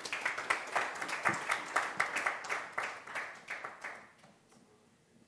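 Audience applauding, dying away about four seconds in.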